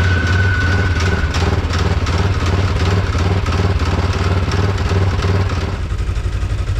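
2017 Polaris RZR XP 4 1000 side-by-side's 1000 cc twin-cylinder engine running under way, a thin whine fading out about a second in and the engine note changing near the end.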